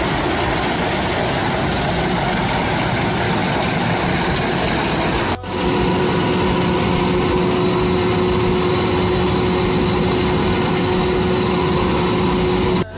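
Rice combine harvester running steadily as it cuts and threshes ripe rice, its engine and machinery making a continuous mechanical drone. The sound breaks off for an instant about five seconds in, and afterwards a steady hum is clearer.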